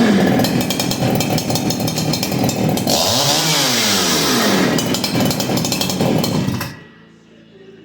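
Farmertec G288 two-stroke chainsaw (a Husqvarna 288XP clone) running at high revs, its top speed tuned to about 12,200 rpm; midway the revs drop and climb back up. The engine stops abruptly near the end.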